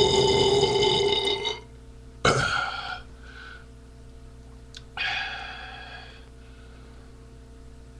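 A man belching loudly after drinking beer. A long, pitched burp ends about a second and a half in, a sudden sharp sound comes a little under a second later, and another pitched burp lasting about a second starts about five seconds in.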